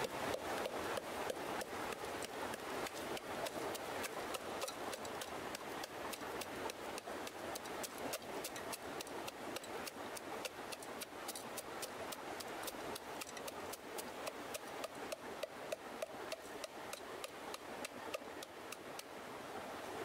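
Mountain clam shells clattering against each other and the inside of a stainless steel pot as a wooden stick stirs and pounds them: a steady stream of rapid, irregular clicks and knocks.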